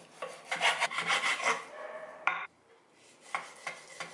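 Kitchen knife sawing through pork skin and fat on a wooden cutting board: a rasping run of strokes in the first second and a half, then one sharp knock of the blade on the board. A few lighter chops follow near the end.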